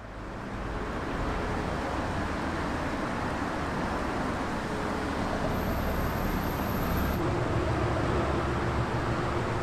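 Steady road-traffic noise of a town street, fading in over the first second.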